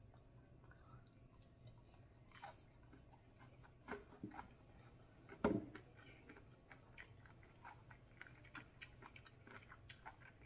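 Faint, close-miked chewing of battered fried shrimp dipped in butter sauce: scattered soft crunches and wet clicks, the sharpest crunch about halfway through.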